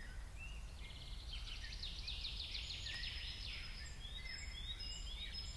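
Faint birds chirping, with a quick trill of repeated notes in the middle and short falling chirps near the end, over a low steady hum of outdoor ambience.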